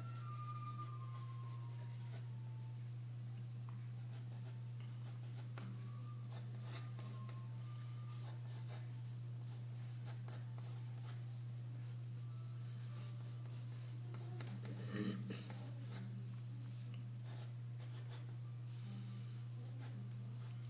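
Graphite pencil scratching across drawing paper in short repeated strokes as a figure is sketched, over a steady low hum. About fifteen seconds in there is a brief louder bump.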